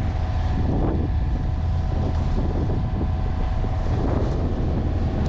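Steady low rumble of wind buffeting the microphone aboard a sailboat under way.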